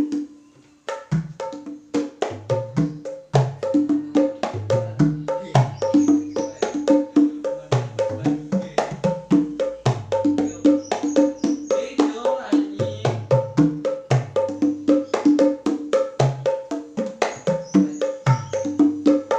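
A set of small wooden hand drums, called kempul mini, played with bare hands in a fast, driving rhythm: crisp ringing high-pitched slaps mixed with deep low strokes. The playing stops briefly at the start and picks up again about a second in.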